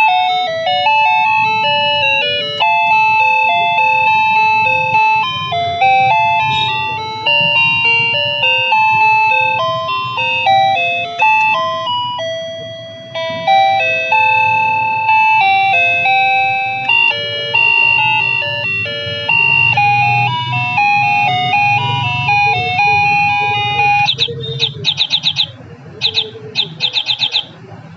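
NEWBAOJI wireless doorbell receiver playing one of its built-in electronic chime melodies as a string of clean stepping notes. About 24 seconds in the tune changes to a fast ringing trill, sounded in two short bursts.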